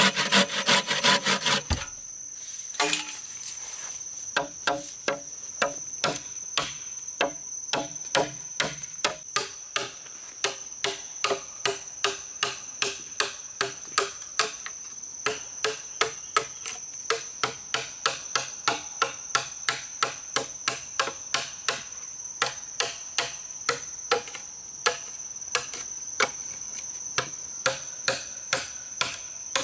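A machete chopping a notch into a green bamboo pole, sharp strokes about two a second, following a brief spell of hand-sawing through the bamboo in the first two seconds. A steady high-pitched trill continues behind the strokes.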